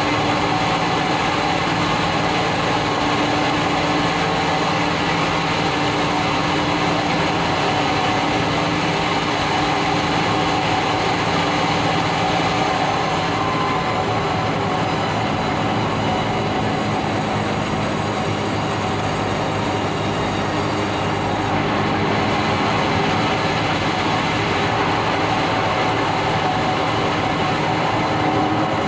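Band sawmill running steadily while sawing yellow meranti timber: a continuous mechanical rumble with a steady whine, the hiss at the top dropping away about 21 seconds in.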